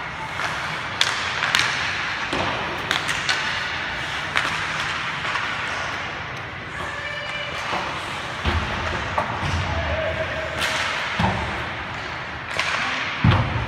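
Ice hockey play heard from rinkside: sticks clacking on the puck and ice, and skates scraping, over an echoing rink. Several heavy thuds of players and puck hitting the boards and glass come in the second half, the loudest just before the end.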